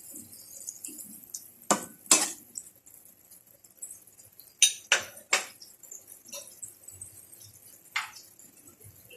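Kitchen utensil clinking against a cooking pot, about six sharp, scattered knocks, three of them in quick succession about five seconds in.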